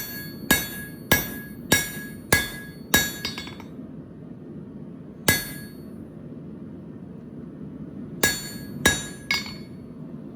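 Blacksmith's hand hammer striking steel on an anvil, each blow ringing. Six blows at a steady pace about one every 0.6 s, then a single blow, then three more near the end.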